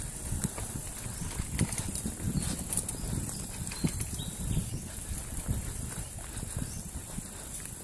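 Mountain bike riding over a rough dirt singletrack: a steady rumble of tyres and frame over the ground with many small knocks and rattles, and wind buffeting the microphone.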